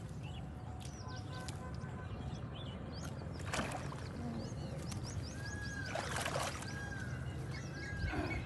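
Birds chirping and whistling over a steady low rumble, with two short rushing noises about three and a half and six seconds in.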